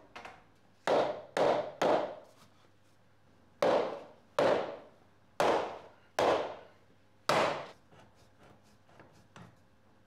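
Mallet blows on a softwood frame, knocking tenons home into their mortises: eight sharp wooden knocks in irregular groups, then a few faint clicks near the end.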